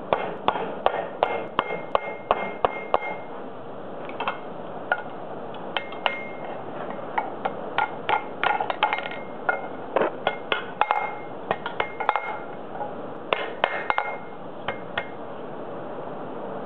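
Hot steel bar being worked on a steel bending jig: many sharp metal-on-metal clinks and taps in irregular clusters, some ringing briefly, dying away near the end.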